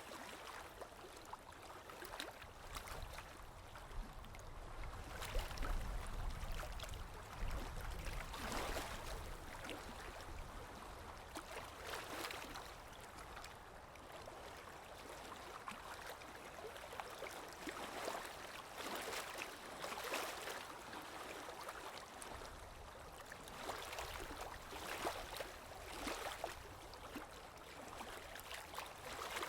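Small waves lapping and splashing against a shore or hull, rising into a splash every few seconds over a steady wash of water, with a low rumble in the first third.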